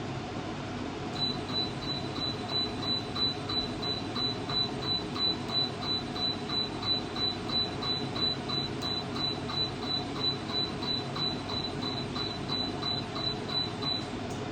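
Laser hair removal machine firing its pulses, beeping once per shot about three times a second over a steady machine hum. The beeping starts about a second in and stops shortly before the end.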